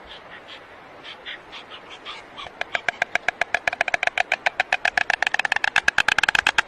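An animal giving a rapid string of short, high-pitched calls: a few scattered calls, then from about two and a half seconds in a fast, even run of about nine a second that grows louder.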